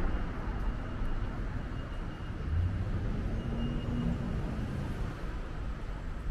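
City street traffic: a steady low rumble of car engines and tyres, with one vehicle a little louder past the middle.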